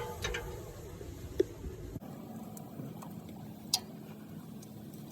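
A few separate sharp clicks, one about a second and a half in and another near the four-second mark, over a steady low background hum.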